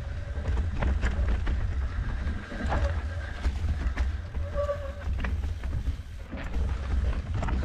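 Wind rumbling on the microphone of a mountain bike moving at speed, with the tyres rolling over dry leaves and dirt and the bike rattling and clicking over rocks and roots.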